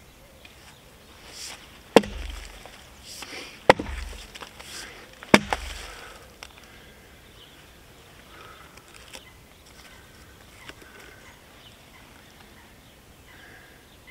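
Felling axe chopping roots off a robinia log: three hard strikes about a second and a half apart, each with a dull thud, then a few faint knocks.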